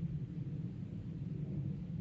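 Boeing CC-177 Globemaster III's four Pratt & Whitney F117 turbofan engines heard from far below as a steady low rumble as it climbs out after takeoff.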